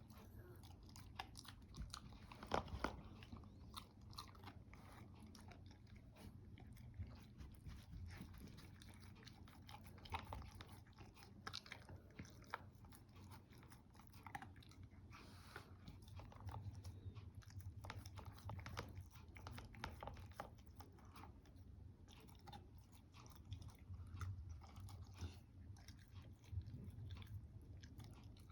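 A dog chewing and crunching its food, faint and irregular, with the sharpest crunches about two and a half seconds in.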